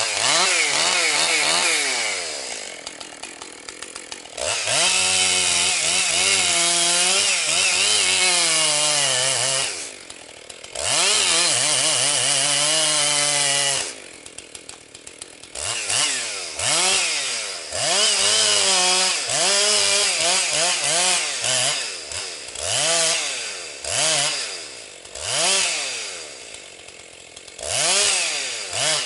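Husqvarna 262XP two-stroke chainsaw cutting at high revs in three long stretches, dropping back to idle between them. In the second half it runs in a quick series of short throttle bursts, revving up and falling away about once a second.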